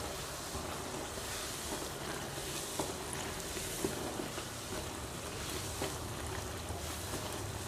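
A puffed poori deep-frying in hot oil on its second side: steady sizzling with a few faint crackles.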